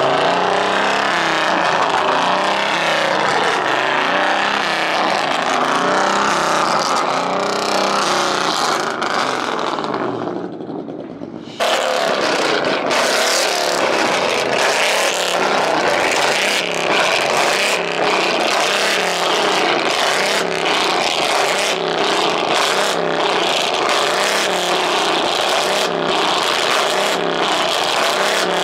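Loud car engine sound for the first ten seconds, which dips and then cuts back in sharply. From there a Ford Mustang is revved hard, its exhaust popping and crackling many times over as it spits flames from the tailpipes.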